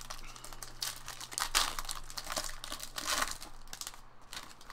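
Silver foil wrapper of a trading-card pack being torn open and crinkled by hand. The rustling is busiest through the middle and thins out near the end.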